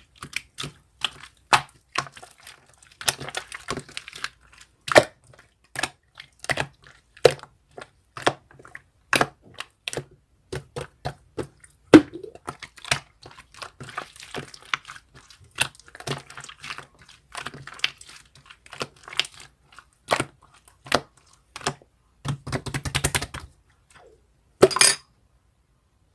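Irregular clicks, taps and knocks of objects being handled close to the microphone, with a quick rattle of rapid clicks a little before the end.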